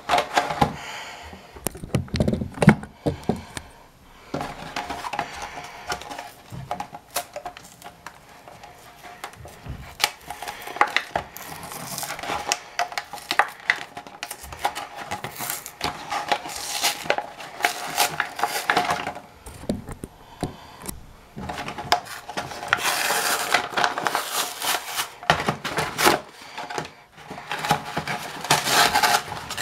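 A Tech Deck fingerboard blister pack being torn open by hand: the paper card backing rips and scrapes away from the plastic blister, which crinkles. Irregular rustling comes in bursts with scattered sharp clicks, and the longest, densest stretch of ripping falls a little after the two-thirds mark.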